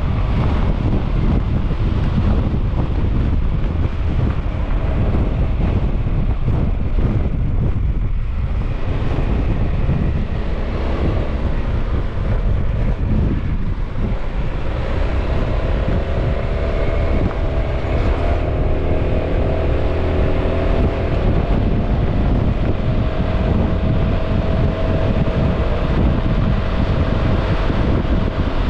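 Honda ADV 350 scooter's single-cylinder engine running while riding, with wind buffeting the microphone throughout. From about halfway the engine note comes through more plainly as a steady tone that rises slowly as the scooter gains speed.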